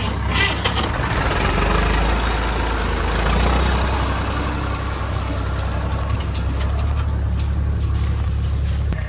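Diesel engine of heavy farm machinery running steadily, with light clattering and clicks over the low engine hum.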